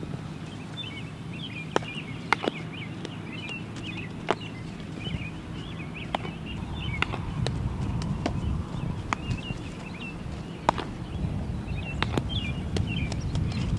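About eight sharp smacks at irregular intervals, fitting a baseball popping into leather gloves during fielding and throwing drills. Small birds chirp throughout, over a low rumble that gets louder about halfway.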